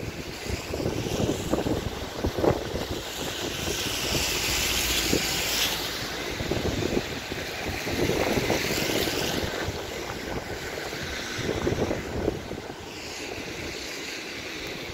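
Wind buffeting the phone's microphone over the steady rush of fast-flowing floodwater, with a higher hiss that swells and fades twice.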